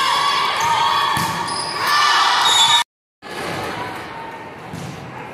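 Indoor volleyball play on a hardwood gym floor: sneakers squeaking, the ball being struck, and players' voices, echoing in a large gym. The sound drops out completely for a moment about three seconds in.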